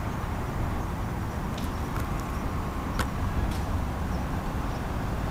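Steady low rumble of distant city traffic, with a few faint clicks around the middle.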